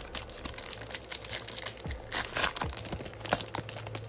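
Crimped plastic wrapper of a 2022 Topps baseball card pack being torn open and crinkled by hand, a run of irregular crackling rips that is loudest about two seconds in.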